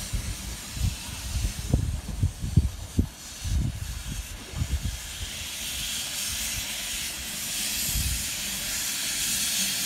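Quarry Hunslet saddle-tank steam locomotive Maid Marian moving slowly with steam hissing. The hiss grows steadily louder from about halfway through as the engine draws closer. Irregular low thumps are heard in the first few seconds.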